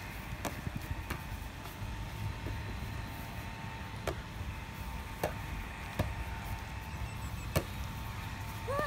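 A volleyball bouncing off bare forearms in dig passes: several short, sharp slaps at uneven spacing, over a steady low background rumble.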